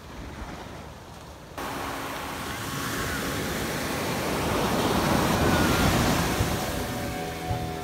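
Waves breaking on a beach, with wind on the microphone: the surf noise jumps louder about a second and a half in and swells to its loudest near the middle. A steady hum joins near the end.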